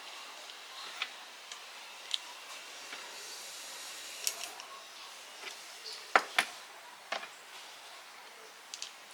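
Scattered light clicks and taps of small parts being handled over a faint steady hiss, with two sharper clicks in quick succession about six seconds in.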